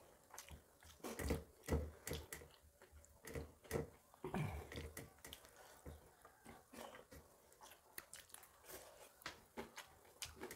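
Faint chewing and mouth sounds of people eating rice by hand, with irregular light clicks and taps of fingers scraping and picking at steel plates.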